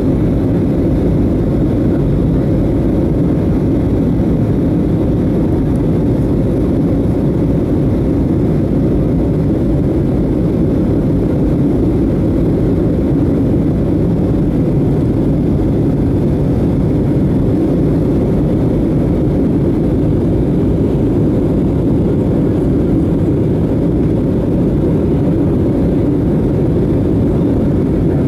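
Steady, low-pitched cabin noise of an Airbus A320neo in flight: engine and airflow noise heard from inside the passenger cabin, unchanging throughout.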